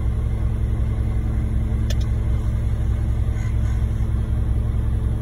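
Diesel engine of a concrete mixer truck running steadily with a low hum, and a single brief click about two seconds in.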